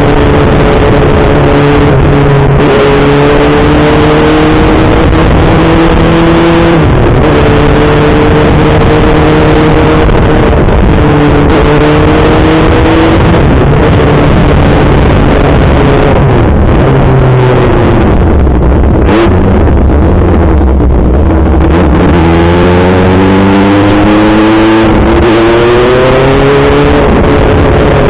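Kawasaki ZX-6R 636 inline-four engine accelerating through the gears, its pitch climbing and then dropping at each upshift every few seconds. About two-thirds of the way through it falls off to a low rumble as the throttle eases, then revs up hard through the gears again.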